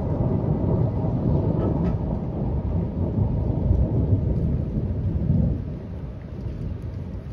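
Rolling thunder rumbling low and long, dying away about five and a half seconds in.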